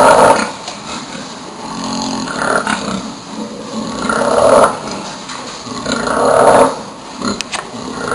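Sleeping boar snoring: about four loud snores, one roughly every two seconds.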